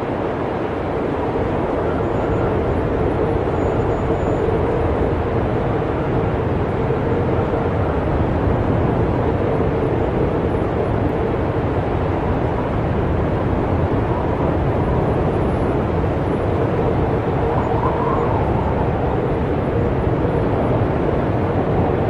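Snowstorm wind blowing in a loud, steady, low rush, with a faint howl that rises and falls a couple of times near the end.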